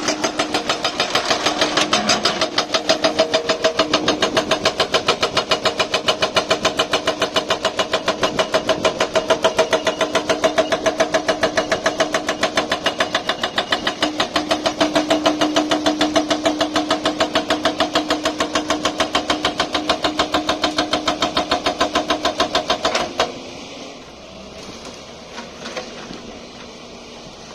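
Hydraulic breaker on a JCB 215LC excavator hammering rapidly, about ten blows a second, over the running engine. It stops abruptly near the end, leaving a much quieter background.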